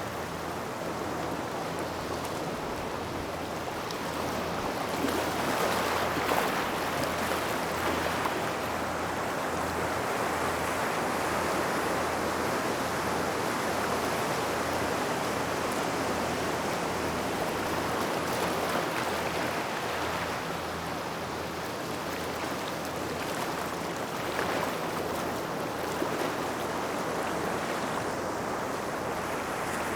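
Waves washing in and out over a gravel shore near rocks, a continuous hiss of surf that swells louder several seconds in and again briefly later on.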